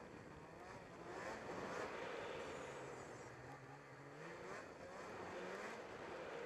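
Snowmobile engine, an 858 being broken in, running through constantly changing revs, its pitch rising and falling several times as the throttle is worked, under a steady rush of track and snow noise.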